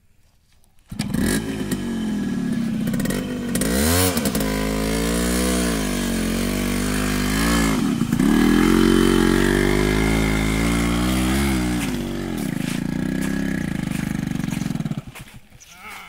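Yamaha RX 100's single-cylinder two-stroke engine catching about a second in after a kickstart and running, its pitch rising and falling as the throttle is blipped a few times, before it stops near the end.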